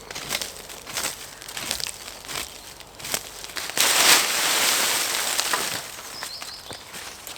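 Irregular crackling and crunching, like dry leaves and twigs being crushed or handled, with a louder rustling stretch of about two seconds in the middle.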